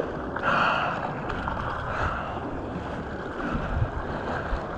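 Shallow ocean surf washing and foaming in a steady rush, with some wind on the microphone.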